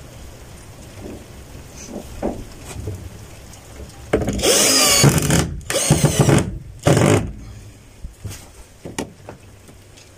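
Cordless drill run in three bursts into the wooden window frame and plank wall: a longer burst about four seconds in with its pitch wavering under load, then two shorter ones, with a few light knocks before and after.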